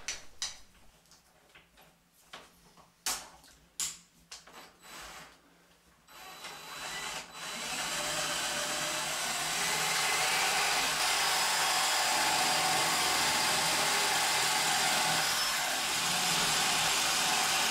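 A few scattered clicks and knocks, then about six seconds in a power drill starts and builds up over a couple of seconds to a steady run, boring a 24mm spade bit into the edge of a wooden door.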